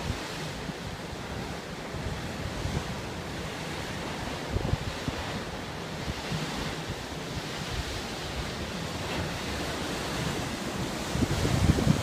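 Ocean surf washing against the cliff below, with wind buffeting the microphone in gusts, the strongest gust near the end.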